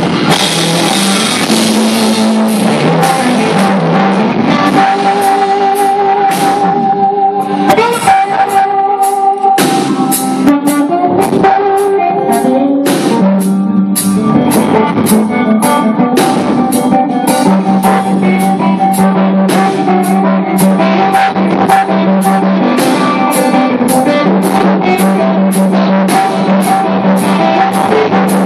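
Live band playing loudly: an electric guitar carries the lead over a drum kit keeping a steady beat.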